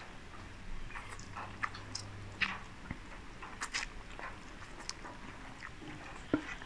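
Close-up eating sounds of Samyang Buldak stir-fried instant noodles: noodles slurped into the mouth and chewed, an irregular string of short wet slurps and smacks.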